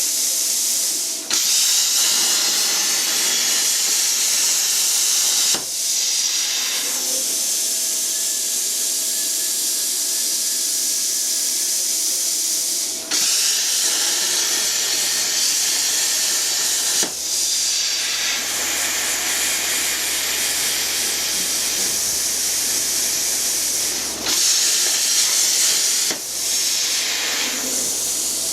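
Plasma cutter running: a steady, loud hiss of the cutting arc and its air jet through sheet steel, broken by brief dips several times.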